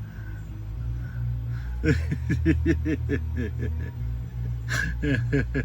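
A person laughing in a quick run of short bursts that starts about two seconds in, over a steady low hum.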